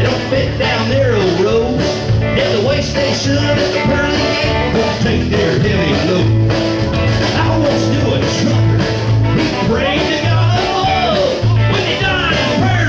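A live country rock band playing loud, with acoustic guitar, upright bass, drums and electric guitar.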